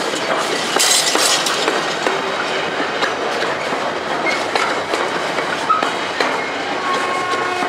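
Loaded container flat wagons of a freight train rolling past close by: a continuous rumble with the clickety-clack of wheels over the rail joints. A thin, steady ringing tone comes in near the end.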